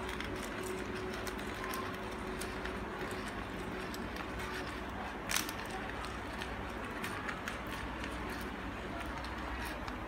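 Light clicks and knocks of glass and metal as a coffee grinder's stainless steel body and glass jar are handled and fitted together, with one sharper knock about five seconds in, over a steady low hum.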